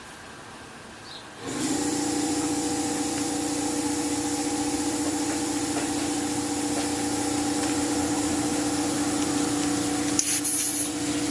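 Electric air compressor switching on about a second and a half in and running steadily with a hum and a hiss of air, inflating a newly fitted inner tube. A short, louder hiss of air comes near the end.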